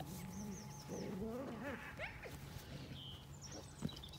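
Quiet outdoor field ambience with a small bird chirping in short repeated phrases and faint low, wavering voice-like sounds. One sharp click comes near the end.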